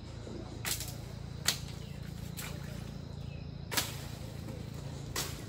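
A hand tool being swung and striking something: about five sharp blows, roughly a second apart, over a steady low hum.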